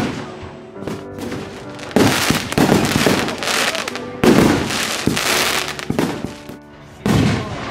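Aerial firework shells bursting in an irregular string of loud bangs, the loudest about four seconds in, with music playing underneath.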